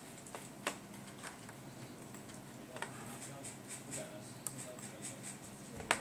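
Small clicks of the FPGA board's pushbuttons and rotary wheel being pressed and turned, an irregular scatter of light clicks with the sharpest one near the end, over a faint steady hum.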